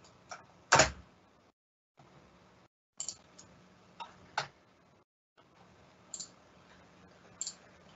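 Scattered single clicks of a computer mouse, about eight in all, the loudest just under a second in with a dull knock under it. A faint hum lies between the clicks.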